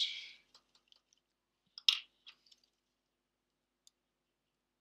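Small clicks and taps of a precision screwdriver and tiny phone screws being handled on a workbench, with one sharp click about two seconds in.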